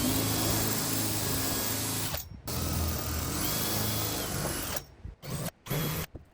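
Power drill running in bursts, enlarging screw holes in wood so the screw heads sink in. Two runs of about two seconds each, then a few short bursts near the end.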